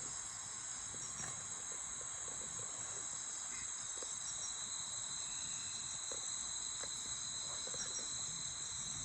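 Insect chorus in the jungle at dusk, a steady high-pitched drone at two pitches, one shrill and one a little lower, with no break.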